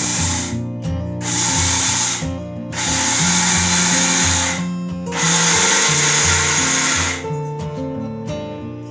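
Electric mixer grinder run in four short pulses of one to two seconds each, grinding soaked sorghum grain into coarse grits, with background guitar music underneath.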